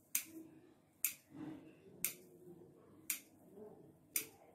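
Scissors snipping through a stack of folded warqa pastry. There are five short, sharp snips, about one a second.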